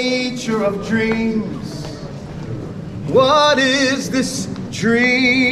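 A man singing long held notes with vibrato, in several phrases of about a second each.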